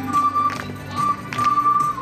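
Children's ocarina ensemble playing a slow melody of held notes, with a lower part sustained beneath it and crisp attacks at the starts of notes.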